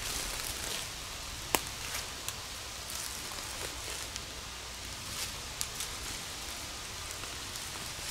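Dry fallen leaves crackling in scattered small bursts, as of slow, careful footsteps through leaf litter, with one sharp louder click about a second and a half in.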